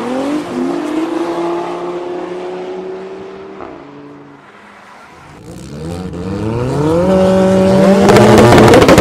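Drag race car engines accelerating hard, their pitch climbing in steps through the gears; the sound fades out about four seconds in. Then an engine revs up again, rising and getting loud toward the end, with a burst of crackling near the end.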